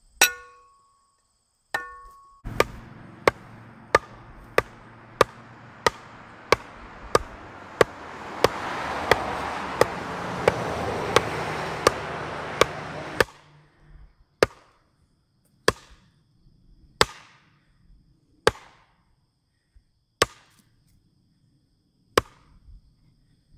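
Sledgehammer blows driving a wooden 4x4 mailbox post into a metal spike anchor. The first two strikes ring metallically. A steady run of blows follows, about one and a half a second, then slows to one every second or two. A rushing noise swells under the faster blows and cuts off suddenly about 13 seconds in.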